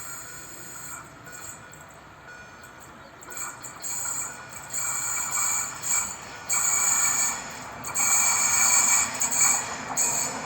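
Train approaching along the line, its noise growing louder in uneven surges from about three seconds in, with a high-pitched ringing hiss over it.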